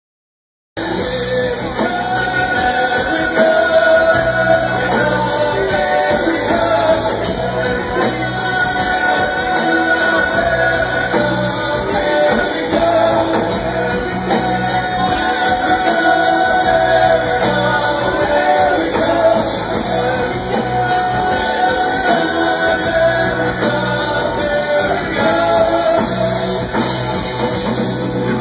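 Live rock band playing loudly, cutting in suddenly less than a second in and running on without a break.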